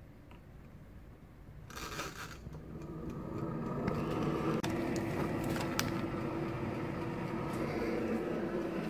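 Midea air fryer switched on: after a short scrape about two seconds in, its fan motor spins up and then runs with a steady hum. A few light clicks sound over it.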